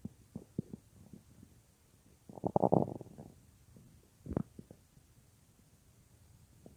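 A person's stomach growling: small scattered gurgles and pops, a louder run of gurgling about two and a half seconds in, and a single sharp pop a little after four seconds.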